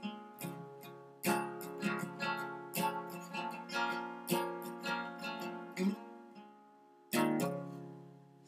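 Acoustic guitar strummed in the closing bars of a song: a run of chords, a short lull, then a final chord about seven seconds in that is left to ring out and fade.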